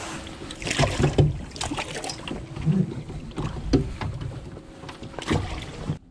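Knocks, bumps and rustling as gear and a towel are handled on a fiberglass boat deck, with wind on the microphone and a faint steady hum underneath. The sound cuts off abruptly near the end.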